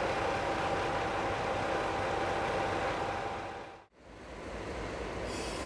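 Diesel train engine idling steadily while the train stands. The sound drops out briefly about four seconds in, then returns as a lower, steady rumble.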